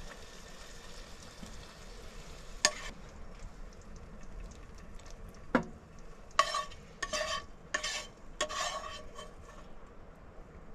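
Spatula working in a frying pan as fried burger patties are lifted out: a faint sizzle at first, two sharp knocks, then several short scrapes of the spatula against the pan with a slight ringing tone.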